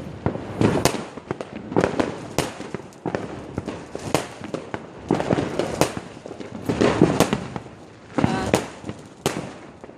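Fireworks going off in a rapid, uneven series: about a dozen sharp bangs with many smaller pops and crackles between them, each bang ringing briefly after it.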